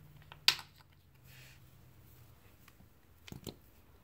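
Handling noises from the lotion pump bottle being picked up: one sharp click about half a second in, then a few faint clicks near the end, over a faint low hum that fades out.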